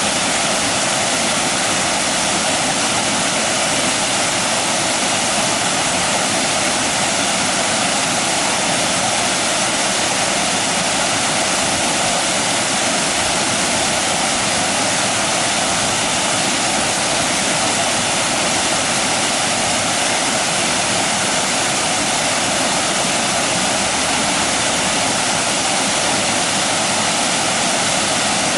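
Water pouring over a small weir-like waterfall in a concrete irrigation channel: a steady, loud rushing with a hissy, splashing top.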